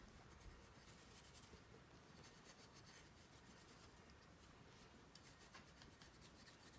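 Faint rubbing of a polishing cloth over a sonic screwdriver prop replica, a soft scratchy sound.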